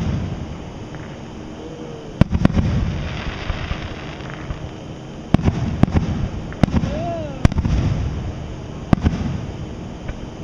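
Aerial fireworks shells bursting: about half a dozen sharp booms, each followed by a low rolling echo. Crackling follows the pair of bangs about two and a half seconds in.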